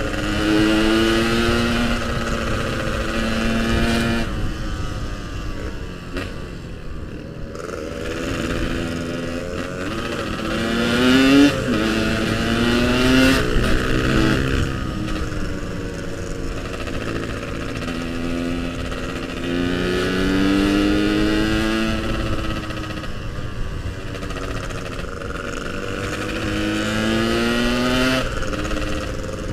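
Yamaha RX-King's two-stroke single-cylinder engine under way, its pitch climbing as it pulls through the gears and dropping back at each shift or when the throttle is eased, several times over.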